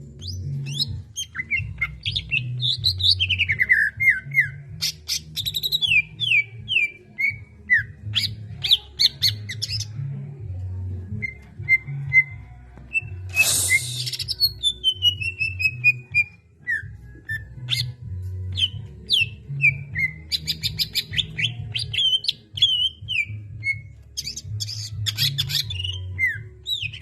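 Green leafbird (cucak ijo) singing in quick runs of falling chirps and whistles, over background music with a steady low beat.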